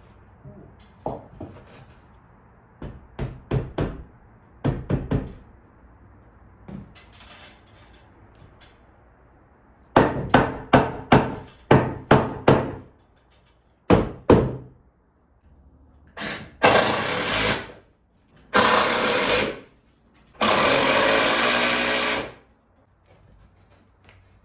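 Construction work: a few light knocks, then a run of about six loud hammer blows about two a second, two more blows, and three bursts of a power tool near the end, the last lasting nearly two seconds.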